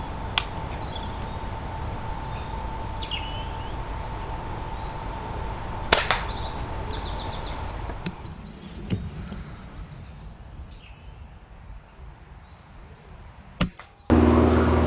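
A sharp crack about six seconds in, typical of a 12 ft-lb .22 PCP air rifle's shot and the pellet strike close behind it, with a few fainter clicks before and after over quiet outdoor background and faint birdsong. A louder steady droning sound starts just before the end.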